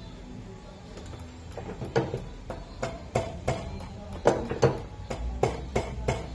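A quick, uneven run of sharp clacks, about three a second, starting about a second and a half in, over steady background music.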